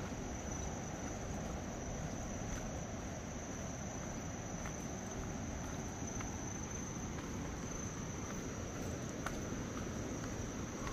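Insects calling in one unbroken, high-pitched tone, over a low rumble of background noise.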